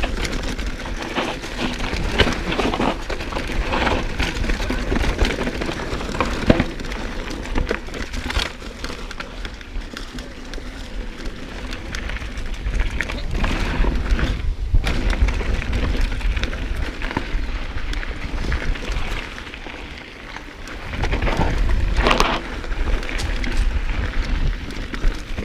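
Mountain bike riding fast down a dirt and rock trail, heard from a handlebar-mounted action camera: wind buffeting the microphone with a steady low rumble, and tyres crunching over the ground while the bike rattles and knocks over bumps. It eases off briefly about twenty seconds in, then picks up again.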